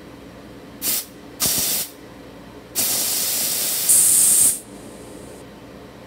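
Optima CMF diesel steamer's spray gun releasing steam in three hissing bursts: a short one, then one of about half a second, then one of nearly two seconds that turns sharper and higher toward its end before it stops.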